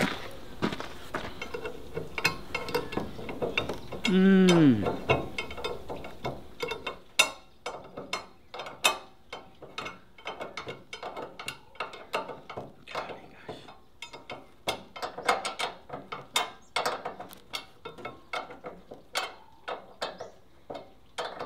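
Spanner tightening a nut on a honey extractor's leg bolt: a long run of sharp metallic clicks, one or two a second, like a ratchet. About four seconds in comes a loud falling tone lasting about a second.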